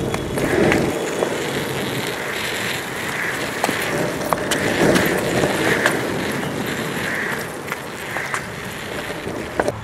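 Skateboard wheels rolling over an asphalt road: a steady rolling rumble with a few sharp clicks scattered through it.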